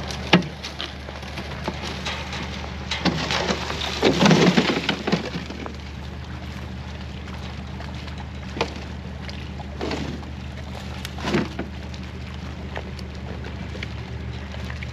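Tow truck engine running steadily while a rusted metal stove is winched through ice and brush, with irregular crunching and scraping as it shifts. The longest crunching comes about four seconds in, with short knocks later on.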